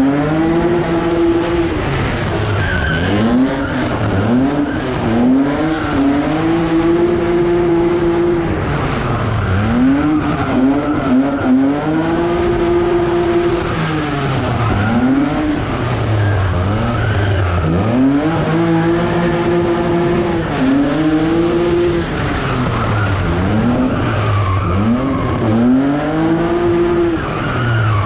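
Drift car's engine revved hard through a drift run, sweeping up and down over and over and held at high revs for a second or two at a time, with tyres squealing and skidding.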